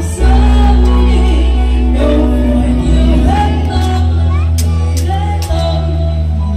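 Loud amplified music with a singer over deep, long-held bass notes that change a few times.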